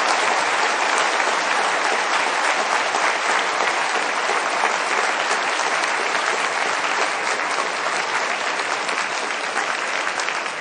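Audience applauding, a long steady round of clapping that begins to thin out near the end.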